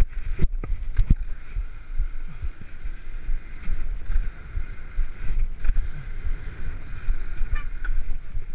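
Wind buffeting the microphone of a mountain bike's handlebar camera during a fast road descent, over the rumble and hiss of tyres rolling on tarmac. A few sharp knocks in the first second or so, as the bike goes over bumps.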